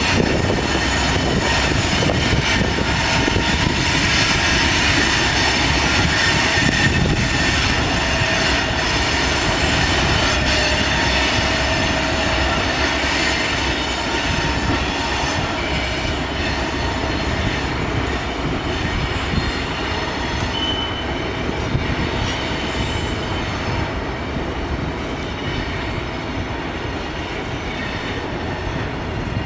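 Freight train passing on steel wheels and rails, with thin high tones over the steady running noise. It slowly grows quieter.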